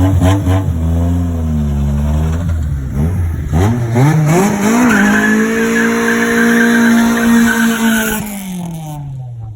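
Car doing a burnout: the engine is blipped a few times, then revved up and held high while the tyres spin and squeal, and the revs fall away near the end.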